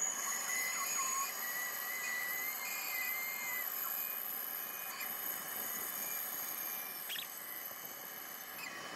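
Bandsaw cutting a curved outline through a thick laminated wooden block: a steady high-pitched whine, with an extra wavering tone for the first three or four seconds. Near the end the higher whine drops away.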